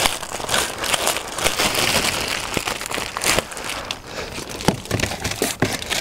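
Clear plastic bag crinkling and crackling as it is handled and pulled off a compound bow.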